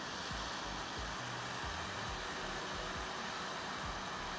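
Hot-air rework gun blowing a steady stream of hot air onto a car ECU circuit board, heating the throttle-control driver chip to desolder it.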